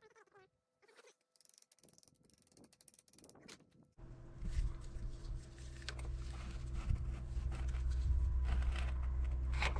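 Faint metallic clicks and clinks from hand work on a motorcycle's rear brake parts. About four seconds in, a steady low machine hum starts abruptly, with clinking and rattling over it.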